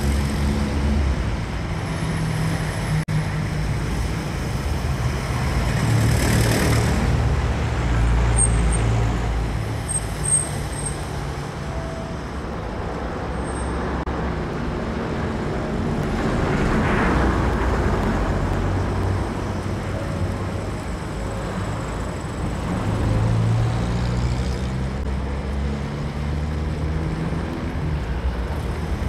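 Street traffic: a steady low rumble of running engines, with vehicles passing close by about six seconds in and again around seventeen seconds.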